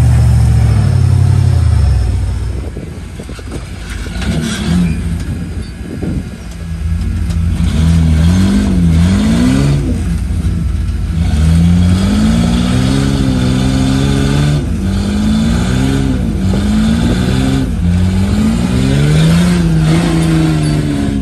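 Rock-crawler buggy engine revving up and down in repeated short throttle bursts while climbing over boulders under load. A steadier, lower engine note runs for the first couple of seconds, and the revving starts about four seconds in.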